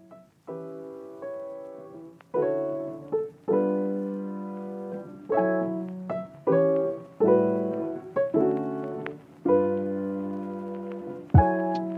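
Slow, gentle solo piano music: single notes and soft chords struck about once or twice a second, each ringing and fading away.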